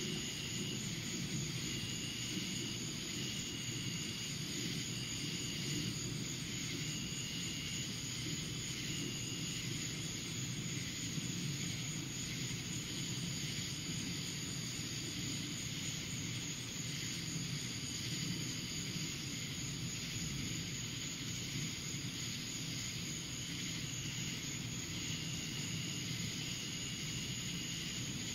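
Steady outdoor night ambience during a thunderstorm: an even low rumbling noise with no sharp claps, and a faint high tone that comes and goes about once a second.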